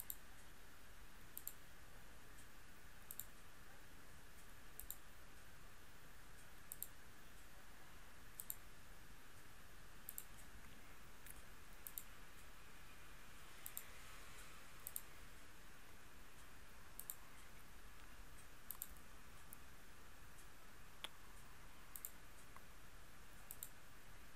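Computer mouse button clicking about every second and a half, often as a quick press-and-release pair, as anchor points are placed one by one with Illustrator's pen tool, over a faint steady hiss.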